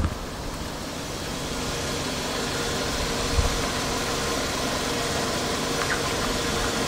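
Car engine idling steadily under a steady hiss, slowly getting a little louder.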